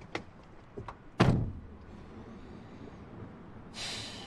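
Car door shut with one loud thunk about a second in, after a couple of small clicks. A low steady hum follows, with a brief hiss near the end.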